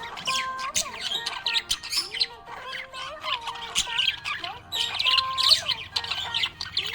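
Budgerigars chirping and warbling in a quick, continuous stream of short high chirps, the happy chatter of contented budgies, over background music.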